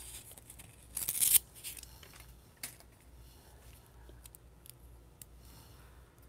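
Adhesive peeled off a roll of glue dots: one short rasping peel about a second in, then a single light click and faint handling of the paper pieces.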